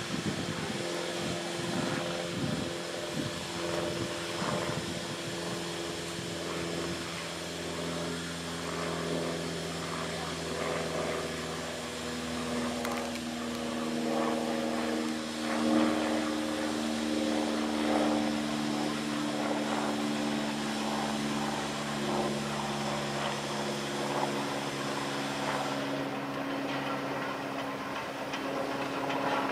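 Steam tank locomotive (Ivatt Class 2 2-6-2T, 41298) and its carriages approaching slowly at low speed. A steady rumble of running gear and wheels carries long ringing tones that shift pitch a couple of times, with a few irregular knocks in the first seconds.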